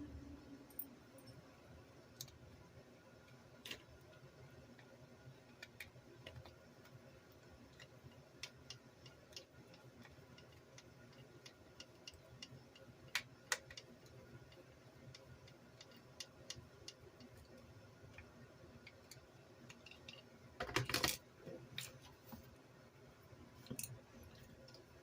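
Scattered small clicks and taps of tools and plastic and metal parts being handled while an RC car is reassembled, with a louder cluster of rattling clicks about twenty seconds in.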